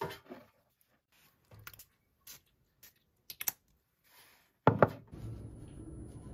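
Light clicks and taps of a glass perfume bottle and small items being handled on a desk. About three-quarters of the way through come two louder knocks, followed by a steady low hum.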